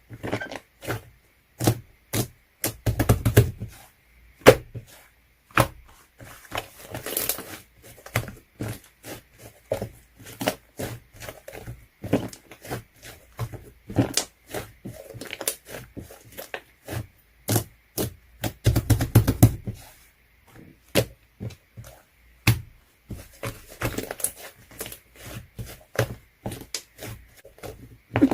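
Hands working slime: a steady run of irregular sticky clicks and pops, with a few longer crackling squishes.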